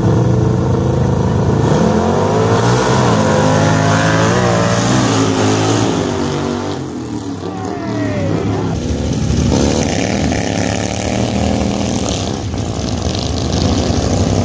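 Two racing lawn tractors' engines revving hard as they launch and accelerate away down a drag strip. The engine note climbs, falls back about five seconds in as they shift up, then climbs again.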